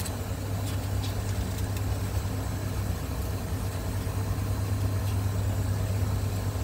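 Mercedes-Benz diesel bus engine idling with a steady low drone.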